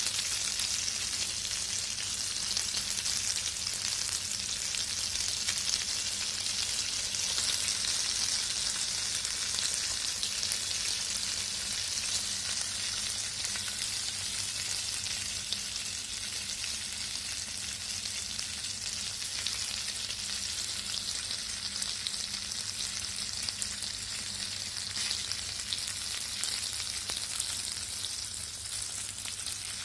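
Oil sizzling and crackling steadily around a whole masala-coated fish shallow-frying on a flat iron pan.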